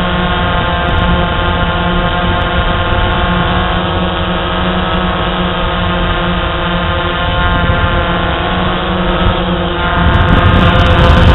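DJI Phantom quadcopter's electric motors and propellers whining steadily, heard through the drone's onboard camera, getting louder and rougher about ten seconds in.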